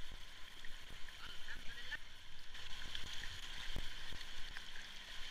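Fast, muddy river water rushing and gurgling around a whitewater kayak as it is paddled downstream, with a few low knocks from the paddling, the loudest almost four seconds in.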